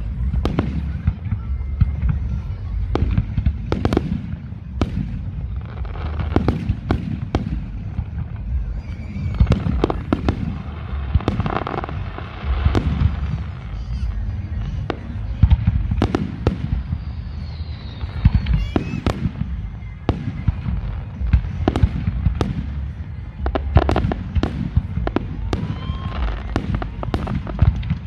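Aerial fireworks display: shells launching and bursting in quick succession, a dense run of sharp booms and cracks over a continuous low rumble.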